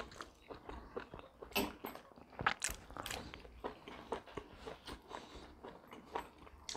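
Close-up eating sounds of people chewing and biting roast chicken pulled apart by hand: irregular small crunches and mouth clicks.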